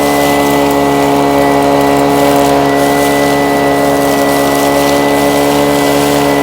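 Small gasoline engine running steadily at a constant speed, a continuous hum with no change in pitch, typical of the engine driving prospecting equipment such as a bedrock vacuum or a dry washer.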